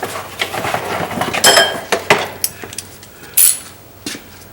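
Metal tools and parts clinking and clattering as they are handled, with a ringing metallic clink about a second and a half in and another a little after three seconds.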